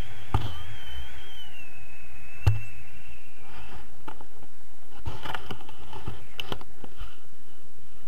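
Air rushing over the camera microphone in paraglider flight, a steady low rumble. A wavering high tone runs through the first three seconds, two sharp knocks come about half a second and two and a half seconds in, and rustling and knocks of harness and camera mount follow in the second half.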